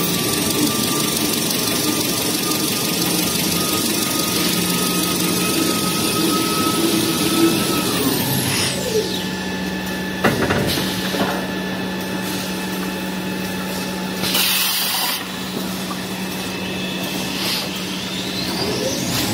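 Paper rewinding machine of a toilet-paper and kitchen-towel line running with a steady hum. Its high whine slides down about eight seconds in and begins climbing again near the end, as the machine slows and speeds up between logs. A knock comes around ten seconds in, and a short hiss a few seconds later.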